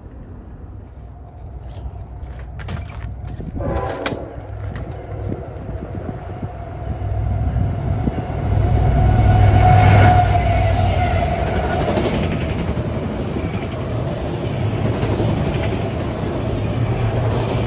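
Freight train passing close by. The diesel locomotives' rumble builds to its loudest about ten seconds in as they go by, then gives way to the steady rolling of autorack cars on the rails.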